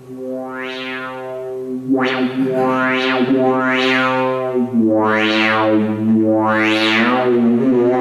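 Moog Mother-32 analog synthesizer playing a sustained, buzzy drone while its filter is swept open and shut about six times, each sweep brightening the tone and then darkening it again. The pitch steps lower about halfway through.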